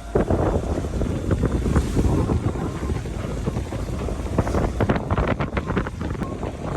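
Wind buffeting the microphone aboard a sailboat under way, with a steady low rush of water and sea beneath it. The gusts come in uneven bursts, thickest a little after halfway.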